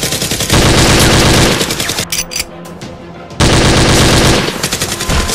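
Automatic gunfire sound effect dubbed over a toy-blaster fight: a long burst of rapid shots, a pause of about a second and a half with a few scattered shots, then a second long burst.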